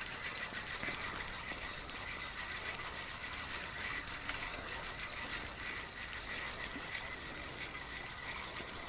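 Steady waterside ambience: an even hiss with light crackling and a faint continuous high-pitched tone, with no distinct event.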